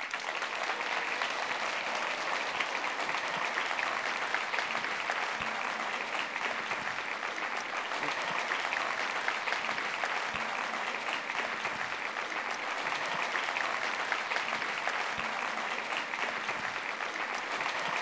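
Audience applauding, a dense, steady clapping that holds at one level throughout.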